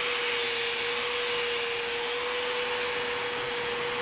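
Angle grinder fitted with a stainless steel wire wheel running at a steady whine, its bristles hissing as they brush a TIG weld on a Hastelloy pipe coupon to clear off surface contamination between passes.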